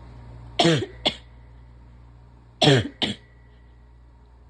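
A person coughing in two double coughs, each pair a sharp cough followed by a shorter one, about two seconds apart, with another cough starting at the very end.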